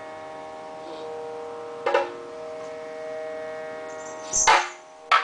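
Kathakali accompaniment: a steady sustained drone, broken three times by sharp drum strokes. The loudest stroke comes near the end, and another follows it closely.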